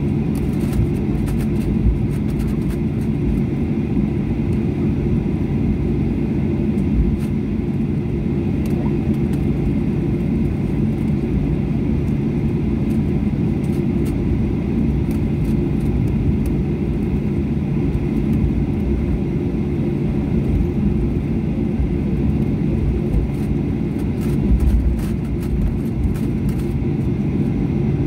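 Steady rumble and hum of an airliner cabin during taxi, from the jet engines running at low thrust as the plane rolls along the taxiway. Faint clicks and light knocks are scattered through it.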